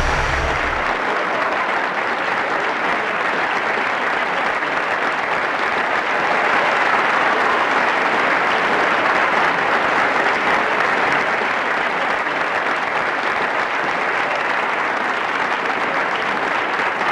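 Crowd applauding steadily and at length, swelling slightly a few seconds in.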